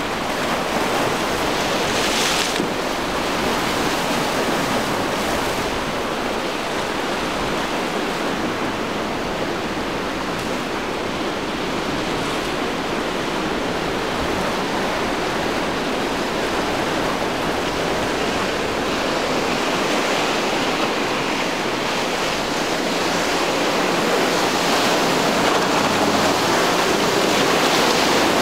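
Rough inlet water and breaking surf rushing steadily, with wind buffeting the microphone. A short sharper hiss of spray comes about two seconds in, and the rush grows a little louder near the end.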